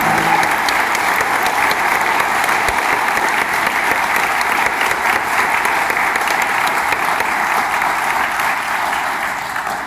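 Audience applauding, a steady mass of clapping that starts to die away near the end.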